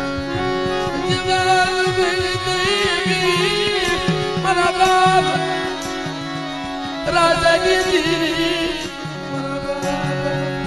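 Gujarati dakla devotional folk music: quick hand-drum strokes under a wavering melodic line with vibrato and held drone-like notes.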